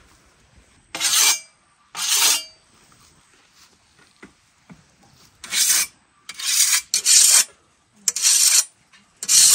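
A scythe blade being sharpened with a whetstone: seven quick hissing strokes of stone on steel, two near the start and then five more in a faster run after a pause of a few seconds.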